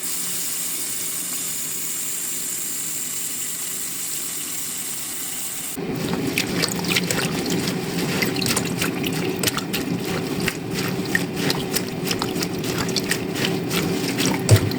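Kale leaves being washed in a kitchen sink: tap water runs in a steady stream for about six seconds, then turns into busier splashing and sloshing with many small splashes as the leaves are rubbed in the water.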